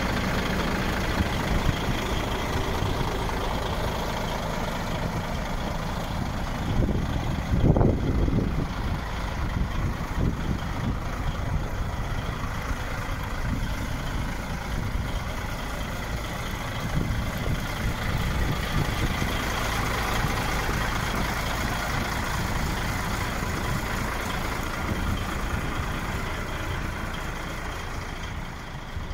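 DAF XF 95.480 tractor unit's 12.6-litre inline-six diesel idling steadily, with one louder burst about eight seconds in.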